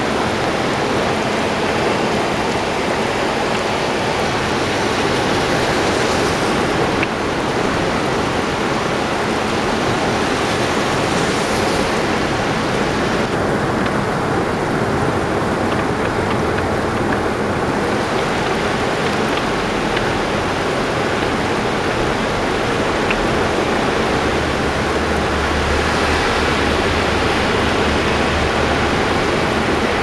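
Steady loud rush of a muddy river in flood, swollen by typhoon rain, with a low rumble joining in during the second half.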